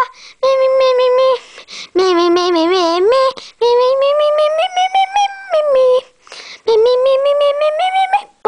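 A single high-pitched voice singing a tune in phrases of a second or two, some notes held steady, others wavering or gliding up and back down, with short pauses between phrases.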